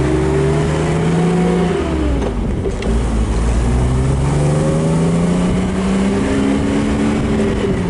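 1969 Mercedes-Benz 280SL's fuel-injected straight-six accelerating through the four-speed manual gearbox. The revs climb, drop at an upshift about two seconds in, climb again through the next gear and fall at another shift near the end.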